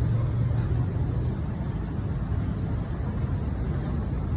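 Steady low rumble of motor-vehicle noise, with a constant low hum.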